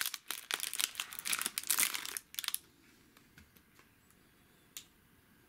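Clear plastic wrapper crinkling as it is unwrapped by hand from a small vacuum tube, for about two and a half seconds, then a single light click near the end.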